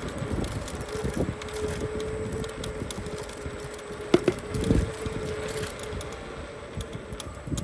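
Electric scooter being ridden: a steady motor whine holds for a few seconds while the frame clatters with small rattles and knocks over the road surface, with one sharp knock about four seconds in.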